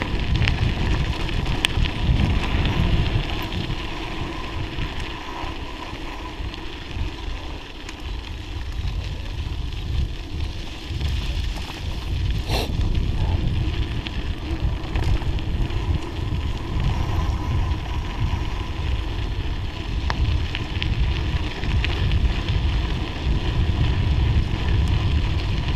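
Wind buffeting the microphone of a bicycle ride camera, a heavy rumble rising and falling, over the rolling noise of the tyres on a snowy forest road. One sharp click about twelve seconds in.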